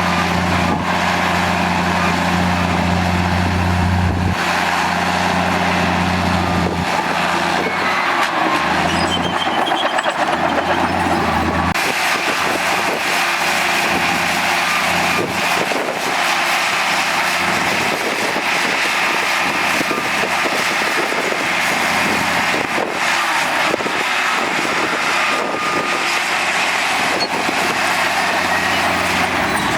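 Heavy diesel earthmoving machinery running and working. Its deep engine note shifts several times in the first twelve seconds and then holds steady under a constant mechanical din.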